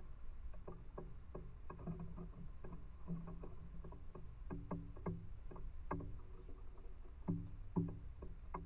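Gray squirrel feeding at a hanging seed cylinder feeder: an irregular run of knocks and clicks, a few a second, some with a short low ring, as it grips and gnaws the seed cake.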